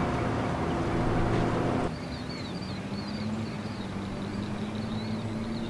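A loud steady mechanical hum with engine-like low tones cuts off abruptly about two seconds in. It gives way to small birds chirping in quick repeated notes over a quieter, steady low hum.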